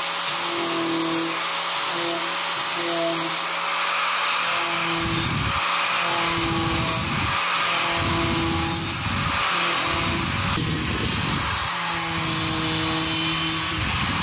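Small angle grinder fitted with a wood-shaping disc, running at speed and grinding along the edge of a wooden board: a steady high whine with rougher grinding noise that comes and goes as the disc bites into the wood, heavier from about five seconds in.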